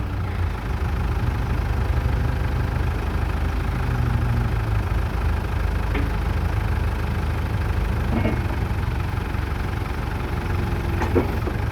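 New Holland LB75 backhoe loader's diesel engine running steadily at a low idle, with a few faint short clicks or knocks from the machine.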